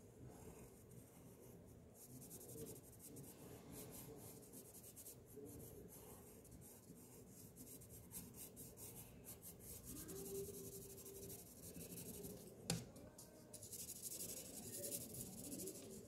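Pencil shading on drawing paper: faint, scratchy back-and-forth strokes, with a single sharp tap about three-quarters of the way through.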